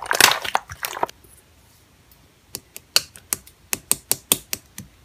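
A dense crackling noise for about the first second, then, after a short quiet gap, a run of about a dozen sharp, uneven clicks at a few per second, typing-like taps.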